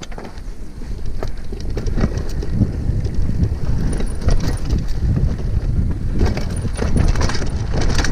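Mountain bike descending a rough dirt trail: tyres rumbling and crunching over the dirt, the bike clattering and rattling over bumps, with wind rumbling on the microphone. It grows louder about a second in as the bike picks up speed.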